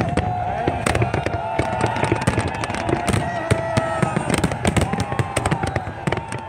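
Aerial firework shells bursting overhead: many sharp bangs and cracks in quick succession, coming thickest in the second half.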